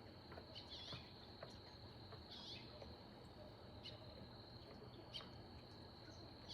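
Near silence: faint evening outdoor ambience, with a steady high insect drone and a few faint, scattered bird chirps.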